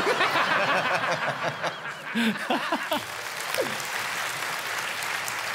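Studio audience laughing and applauding. The laughter dies out after about three seconds, leaving steady applause.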